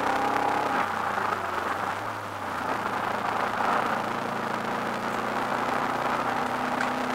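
Race-prepared Subaru Impreza WRX's turbocharged flat-four engine heard from inside the cabin. Its note drops about a second in as the driver lifts off for a bend, then climbs steadily again as the car accelerates out.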